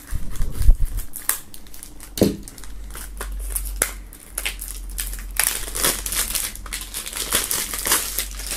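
Plastic shrink-wrap on a CD jewel case being slit with a knife and peeled off: a run of crinkling and crackling film, with a few louder knocks near the start.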